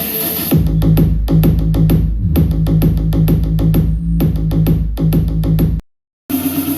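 Electronic music with a drum-machine beat and heavy bass, played through the Mivi Fort Q80 soundbar in a sound test. The beat and bass come in about half a second in, and the sound cuts out completely for about half a second near the end before music starts again.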